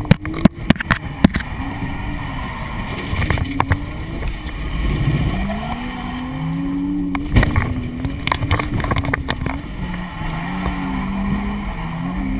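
Drift car's engine heard from inside the cabin, revving up and down repeatedly through a tandem drift. Sharp knocks and clatter cut in over it right at the start and again around the middle.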